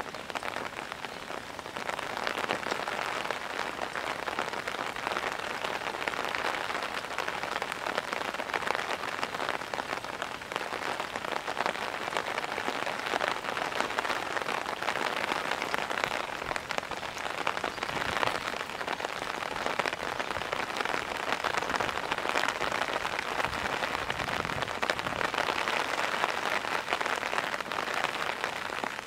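Heavy rain pouring down steadily, a dense patter of drops.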